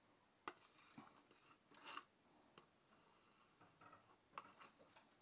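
Faint scattered clicks and taps with a short scrape about two seconds in: a spoon and a plastic tub being handled as soft cheese is scraped out into a pot.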